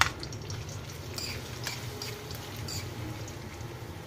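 Minced garlic sizzling and crackling in hot cooking oil in a wok, as a metal spoon scrapes and taps it off a plate into the pan; a sharp clink of the spoon at the very start is the loudest sound.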